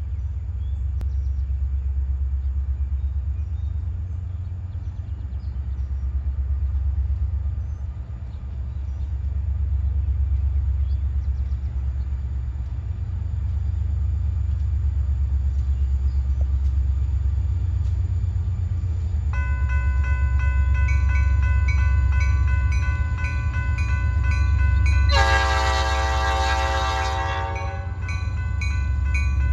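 Diesel freight train approaching over a low rumble. About 19 seconds in, a grade-crossing bell starts ringing steadily. About 25 seconds in, the locomotive sounds its horn in one loud blast of nearly three seconds.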